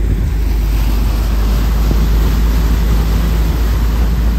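Passenger ship's engine running with a steady deep rumble, under an even rushing hiss of water and wind.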